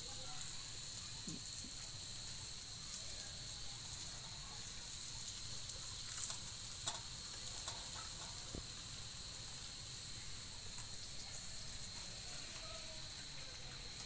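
Gujiya deep-frying in hot oil in a kadhai, a steady sizzle with a few faint clicks.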